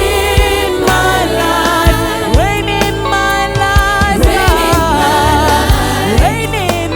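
Gospel worship music with a strong bass, a regular low beat and a wavering melody line.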